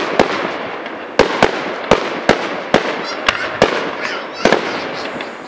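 Aerial fireworks shells bursting overhead: about a dozen sharp bangs in quick succession, with a continuous crackle between them.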